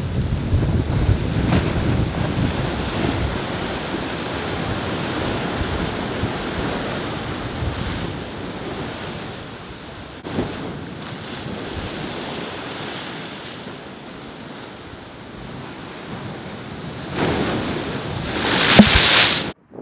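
Storm waves breaking against a sea wall and surging along it, with wind buffeting the microphone, strongest at the start. About ten seconds in, a wave hits the wall with a short crash. Near the end, a wave bursts over the wall and its spray lands close by: the loudest moment, which cuts off suddenly.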